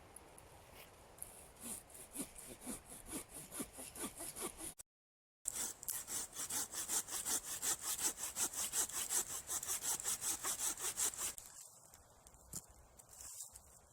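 Hand saw cutting wood in quick, even back-and-forth strokes, about four a second. The strokes break off briefly a third of the way in, come back louder, and grow fainter near the end.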